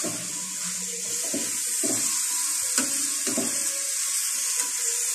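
Karela, onion and tomato frying in a pan on a gas burner, with a steady sizzling hiss as the tomato juice cooks off. A slotted spatula scrapes and stirs through the pan in several strokes.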